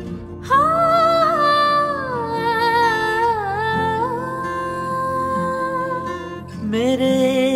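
Live vocal music: a voice sings long, drawn-out notes that slide down in pitch, over acoustic guitar accompaniment, with a new, lower phrase starting near the end.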